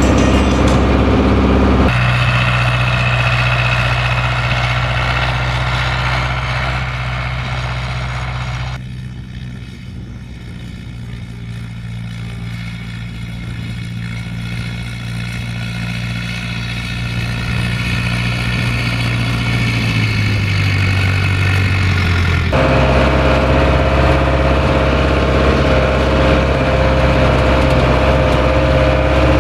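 International 844S tractor's diesel engine running steadily under load while pulling a harrow through the soil. The middle stretch is quieter and more distant, and the engine note dips briefly about twenty seconds in before the sound becomes close again, as heard inside the cab.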